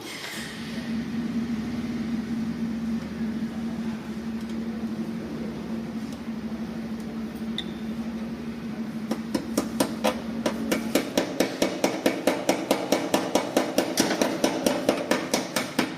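A steady mechanical hum, then from about nine seconds in a rapid, even run of hammer taps on metal, about three to four strikes a second, louder than the hum.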